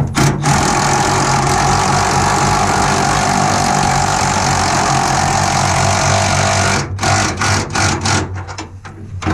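A power tool runs for about six seconds with a steady whir and hiss whose pitch sags slightly, then gives a few short bursts, as it runs a nut down on the fuel line fitting. A steady low mechanical hum runs underneath.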